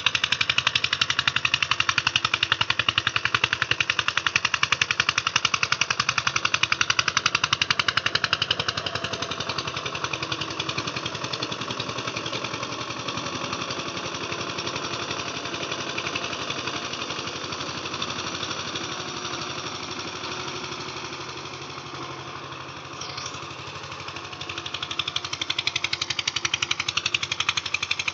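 Eicher tractor's diesel engine running with a fast, even chugging, louder for the first several seconds, quieter through the middle and louder again near the end.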